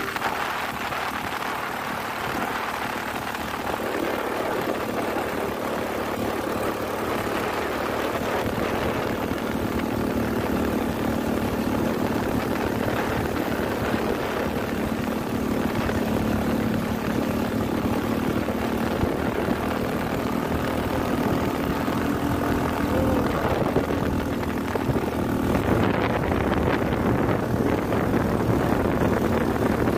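Honda Vario scooter's single-cylinder engine running steadily under load on a steep uphill climb, with wind rushing over the microphone. The engine drone shifts a little in pitch about two-thirds of the way through and grows slightly louder near the end.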